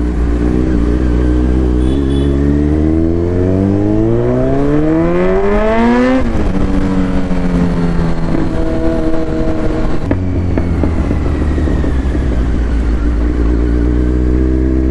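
Kawasaki Z900 inline-four with an Akrapovic exhaust, under way. The revs climb steadily for about six seconds, drop sharply, then the engine runs steadily at lower revs.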